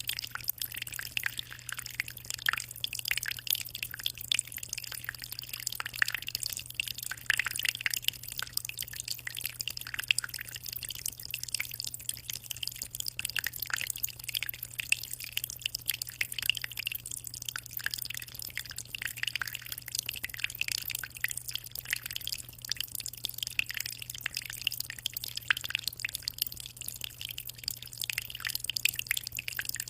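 Aquarium water trickling and splashing steadily, a continuous patter of small drips and splashes, over a steady low hum.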